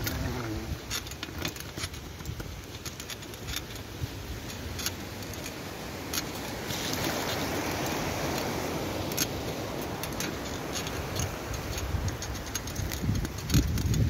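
Mountain bike ridden over snow and slush: the tyres rolling with a steady hiss while the bike rattles in quick, irregular clicks. The hiss grows louder for a few seconds in the middle, and a few low thumps come near the end.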